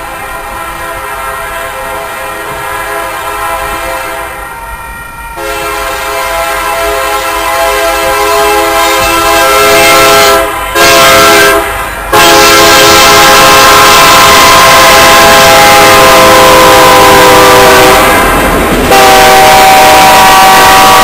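A BNSF SD70MAC diesel locomotive's multi-chime air horn blows the grade-crossing signal: long, long, short, long. It then starts another long blast, getting louder as the coal train draws near. The horn's pitch drops as the locomotive goes by, and rail noise from the passing coal cars rises underneath.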